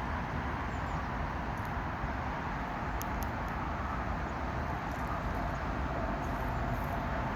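Steady outdoor background noise: a constant low rumble and hiss like distant traffic, with a couple of faint clicks about three seconds in.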